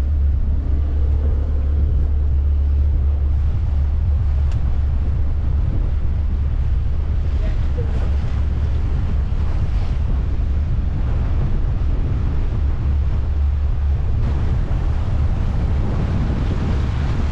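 Wind buffeting the microphone over the steady low drone of a motor boat cruising slowly under its engines, with the rush of water along the hull.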